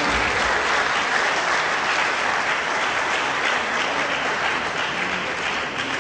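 Audience in a large hall applauding: steady, dense clapping that thins slightly near the end.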